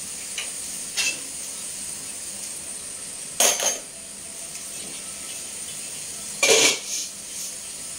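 Metal cookware and utensils clanking: a light tap about a second in, then two sharp ringing clanks about three seconds apart, over a steady faint hiss.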